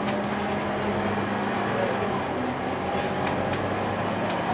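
Inside a moving single-deck city bus: steady engine and drivetrain hum with road noise, a low steady drone underneath. A few short light rattles from the cabin fittings come through, about a second in and twice near three and a half seconds.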